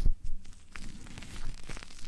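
Close-up rubbing and scratching on an ASMR microphone's ear, louder in the first half-second, then settling into quieter, even rustling with faint clicks.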